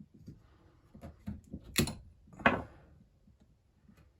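Small parts of an old chainsaw carburettor being handled: faint ticks and taps, with two sharp clicks about two and two and a half seconds in.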